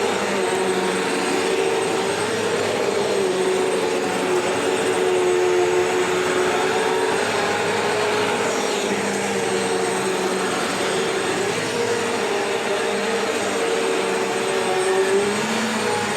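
Vacuum cleaner running on old, worn carpet: a steady motor whine with airflow hiss, its pitch dipping and recovering every few seconds as the load on the motor changes.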